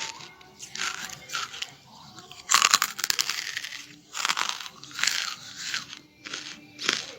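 Charcoal being bitten and chewed close to the microphone. A loud, crackly crunch comes about two and a half seconds in, followed by shorter bursts of crunching as it is chewed.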